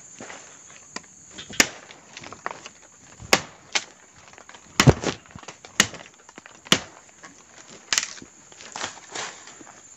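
Footsteps through forest undergrowth: sharp cracks of twigs and leaf litter underfoot at an uneven pace of about one a second, with rustling in between.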